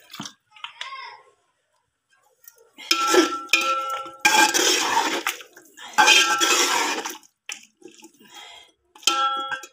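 A perforated steel spoon scraping and knocking against a metal pot while stirring a wet potato and carrot curry. The pot rings with each stroke. It comes in bouts, mostly in the middle, with a short one near the end.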